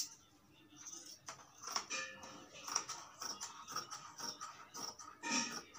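Tailoring scissors cutting through folded cotton fabric: a run of short metallic snips and crunches as the blades close, with a louder burst about five seconds in.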